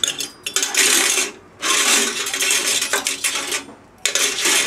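Small metal grill utensils clattering and scraping against the metal parts of a Cobb grill as they are packed into it, in three bouts.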